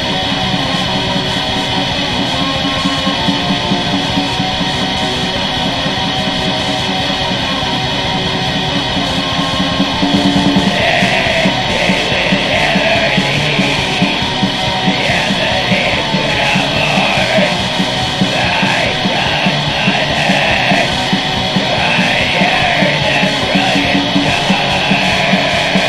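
Black metal song: distorted electric guitars and fast drumming. Harsh screamed vocals come in about ten seconds in.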